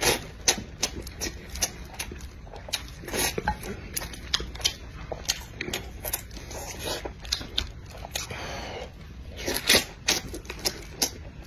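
Close-miked mouth sounds of a man chewing chicken drumstick meat: wet smacks and clicks, with louder bites and tearing near the end.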